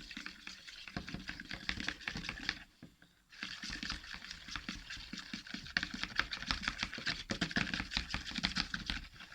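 Clear-glue slime being stirred just after the activator went in, a fast, dense run of sticky, wet clicking and squelching, sped up. It breaks off briefly about three seconds in.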